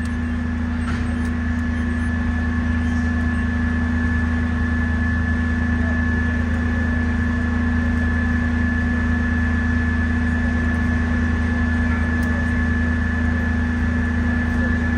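FDNY fire engine's diesel engine idling steadily: a constant low hum with a thin, steady high whine above it.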